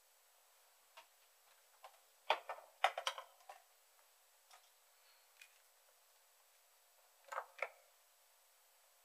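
Scattered light clicks and taps of small tools and parts being handled on a workbench, with a quick cluster of knocks in the first half and a pair of taps near the end.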